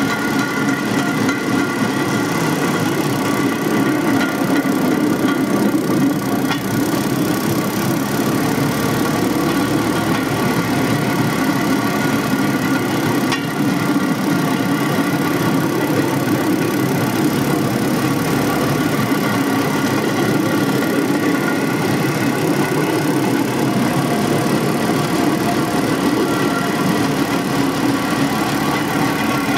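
Small engine of a motorised railcart running steadily as the cart rolls along the rails, a continuous even drone.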